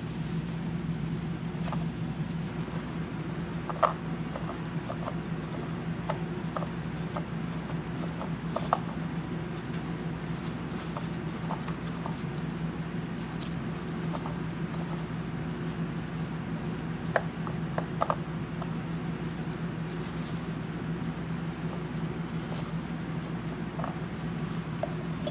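Paper towel crinkling and rubbing as a gloved hand turns a loosened motorcycle oil filter off by hand, with a few short clicks, over a steady low hum.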